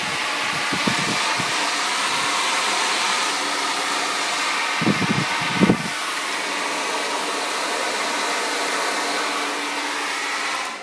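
Handheld hair dryer with a diffuser attachment running steadily on hair, a loud whooshing blow with a faint motor whine. A few low knocks come about halfway through, and the dryer cuts off at the very end.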